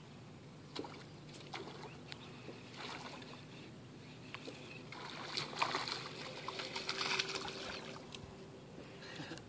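Splashing at the water's surface from a topwater lure and a hooked fish thrashing on it, with a few sharp ticks in the first two seconds and the splashing at its loudest past the middle.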